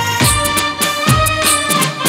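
Live Gujarati folk band playing an instrumental passage. Dhol and drum kits keep a steady beat of about two hits a second, with cymbal splashes, under a sustained melody line.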